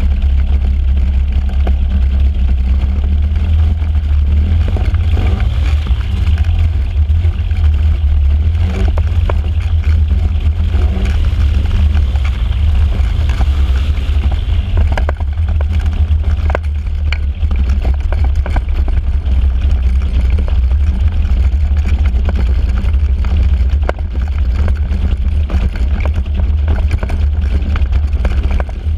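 Flexwing microlight's rear-mounted engine and pusher propeller running at taxi power with a low, continuous drone that dips briefly a few times. The engine is running rough, missing a lot at anything below full throttle.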